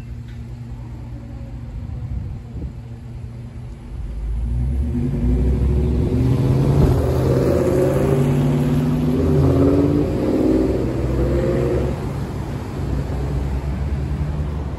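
Road traffic moving off across a railroad crossing once the gates lift. Car engines accelerate past with a loud low rumble, swelling about four seconds in and easing off near the end.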